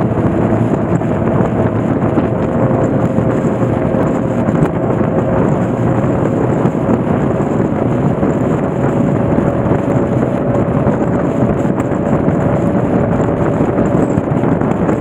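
Motorcycle riding at speed: wind rushing over the microphone, with the engine's steady note climbing slowly.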